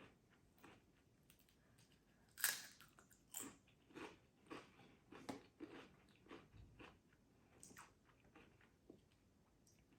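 A person chewing Pringles potato crisps, with faint crunches about every half second. The loudest crunch comes about two and a half seconds in.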